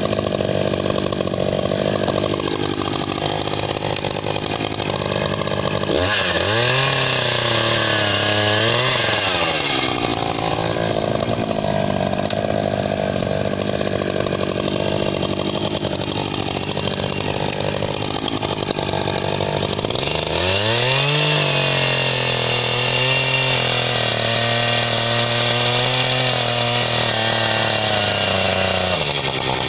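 Echo CS-590 two-stroke chainsaw idling, then revved up and cutting into a log twice: once about six seconds in for a few seconds, and again from about twenty seconds in until near the end, the engine pitch climbing as the throttle opens and holding through the cut.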